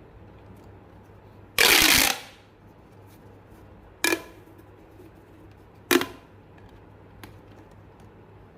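Three loud pops: a longer, noisier burst about one and a half seconds in, then two short, sharp pops about two seconds apart, with a faint tick near the end.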